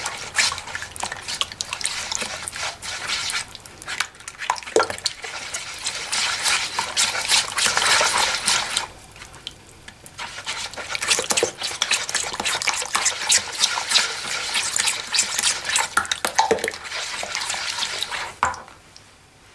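Hand whisk beating a runny yogurt, oil and egg mixture in a large mixing bowl: quick wet sloshing and clicking. It pauses briefly about halfway and stops just before the end.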